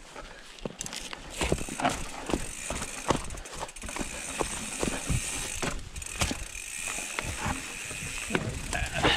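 Mountain bike riding down a rough dirt trail. Frequent irregular knocks and rattles from the bike over the bumps sit over a steady rush of tyre and trail noise.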